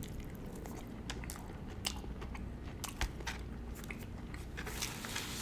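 A person biting and chewing crispy fried chicken close to the microphone, with scattered crunches of the breading.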